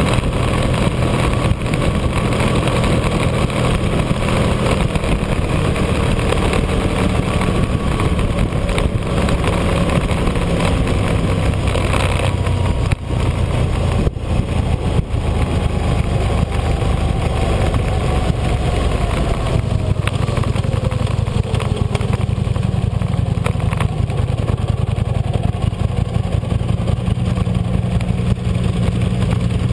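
Sport motorcycle engine running steadily at road speed, heavy wind noise on the mic. Past the middle its note falls slowly as the bike slows down.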